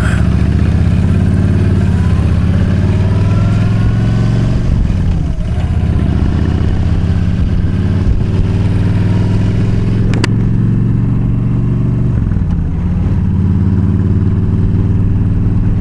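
Yamaha V Star 1300's V-twin engine pulling away and accelerating. Its pitch climbs, then drops briefly at gear changes about five and about twelve and a half seconds in. A single short click comes about ten seconds in.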